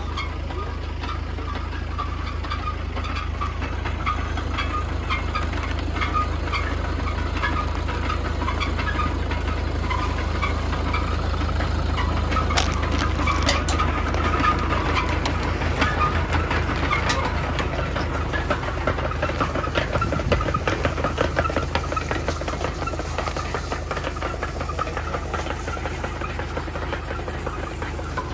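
Tractor engine running steadily, with clicking and rattling from a rear-mounted machine winding up two lines of drip irrigation pipe. The rattling is busiest around the middle.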